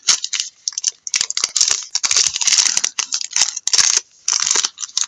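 Trading cards and their packaging being handled: a run of irregular rustling and scraping with small clicks as the cards slide against each other and against the box.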